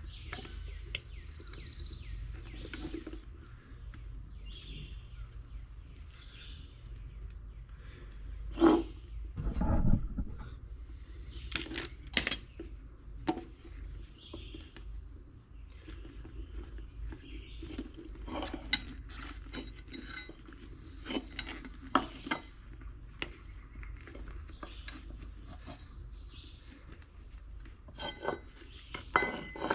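Scattered metal clinks, taps and knocks from hand work on a small wheelbarrow wheel as a new tire and inner tube are worked onto the rim with tire levers. A few louder knocks come about a third of the way in.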